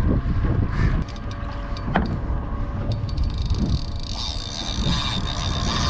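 Boat motor running steadily under a heavy low rumble of wind on the microphone, with a sharp click about two seconds in.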